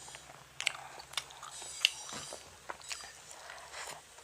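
A person chewing and biting siomay close to the microphone, with a string of sharp, irregular mouth clicks and smacks.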